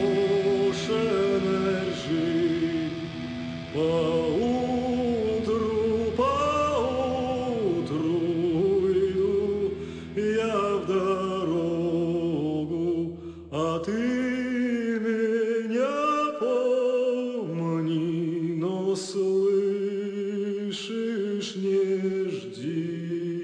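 Slow song: a male voice singing a melody with vibrato over a low held drone that stops about two thirds of the way through.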